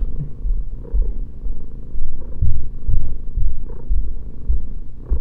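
Russian Blue cat purring loudly right at the microphone, a low rumble that swells and fades in waves.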